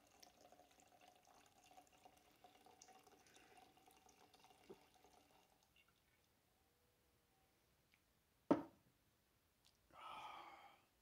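Near silence with a faint steady hum, broken by one sharp knock about eight and a half seconds in, then a man's breathy exhale near the end.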